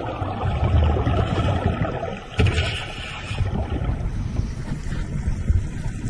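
Muffled rumbling and rushing of churned water on an underwater microphone, with a sudden louder surge about two and a half seconds in.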